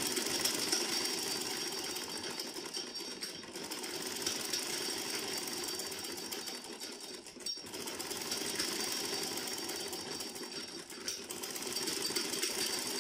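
Domestic sewing machine running steadily, its needle stitching a seam in a cotton kameez with a fast, even rattle, easing off briefly about seven seconds in.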